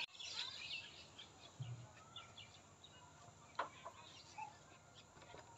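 Faint chirping of small birds, with one sharp tick about three and a half seconds in.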